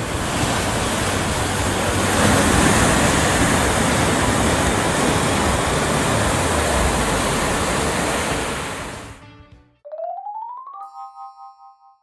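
Steady rushing sound of ocean surf for about nine seconds, fading out. Then a short electronic sound effect: a tone rising for about a second and settling into a bright chiming chord that dies away in pulses.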